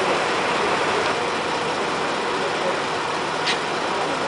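Emergency vehicles' engines idling, a steady sound, with one short sharp click about three and a half seconds in.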